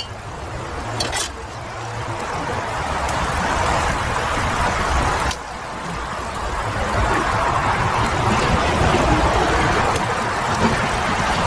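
A cast-iron kazan of plov rice boiling hard with its heat source going beneath it: a steady rushing noise that slowly swells, dips briefly about five seconds in, then builds again.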